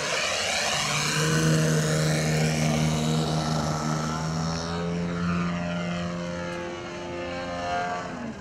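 The 3W 170cc two-stroke petrol engine of a Krill Model SU-29 radio-control aerobatic plane, with its propeller, running at a steady throttle in flight. It is loudest about two seconds in, then fades and drops a little in pitch near the end as the plane moves away.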